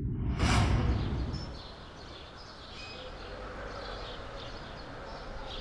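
A whoosh sound effect with a low rumble fades out in the first second and a half. Then comes outdoor street ambience with birds chirping now and then.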